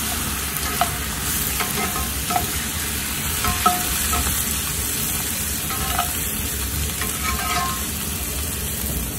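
Chili-garlic paste sizzling in a cast-iron skillet over charcoal, just deglazed with soy sauce. A metal spatula stirs and scrapes through it with a few short metallic clinks against the pan.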